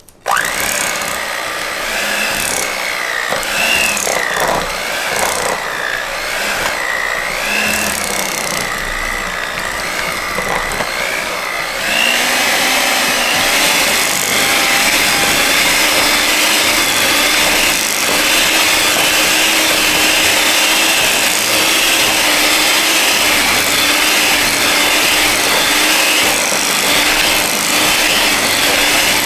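Electric hand mixer running with its beaters in a glass bowl of cream cheese. Its motor note wavers for the first twelve seconds, then runs louder and higher about twelve seconds in and holds steady.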